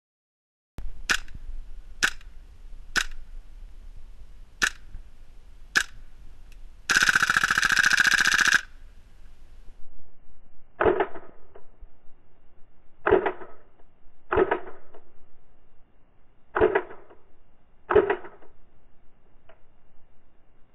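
WE gas-blowback open-bolt M4 airsoft rifle firing: five single semi-auto shots about a second apart, then a full-auto burst lasting about a second and a half. After that come more single shots a second or two apart, duller in tone.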